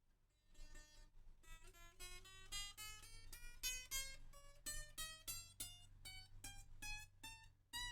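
Guitar played softly, with single notes plucked one after another, climbing in pitch and then picked higher up the neck. The guitar is being tried out to check the string action after a setup.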